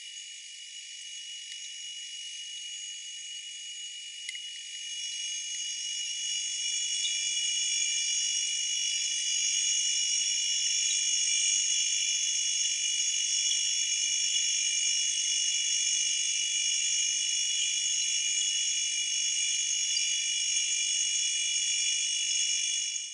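A steady, high-pitched shimmering drone of several held tones, with no low sound at all. It grows louder about six seconds in and cuts off abruptly at the end.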